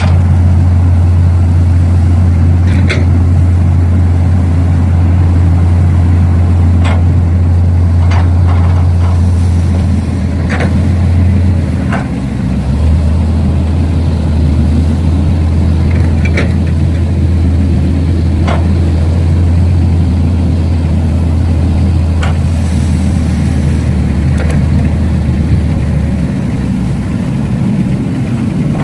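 Steady low engine drone from radio-controlled model construction vehicles at work, with scattered sharp clicks and knocks. The drone shifts slightly in pitch about halfway through and cuts out a couple of seconds before the end.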